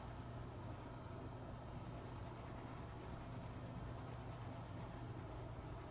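Graphite pencil scratching softly on sketchbook paper, shading in small circular strokes, over a low steady hum.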